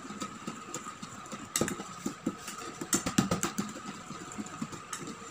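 Wire whisk beating a thin liquid in a stainless steel bowl, dissolving instant coffee into the milk, egg and oil: rapid, irregular clicking and tapping of the wires against the bowl, louder in a couple of spells. A faint steady high hum runs underneath.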